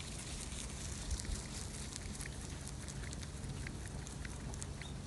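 Rabbit chewing a fresh green leaf, a run of small crisp crunching clicks, over a steady low hum.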